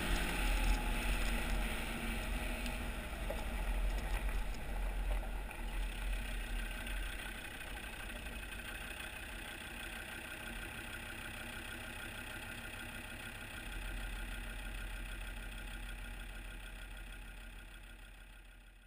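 Land Rover Discovery TD5's five-cylinder turbodiesel running as the vehicle rolls slowly on a loose gravel lane, with tyre noise on the gravel and wind rumble on a wheel-mounted microphone. Louder for the first few seconds, then steadier and quieter, fading out at the very end.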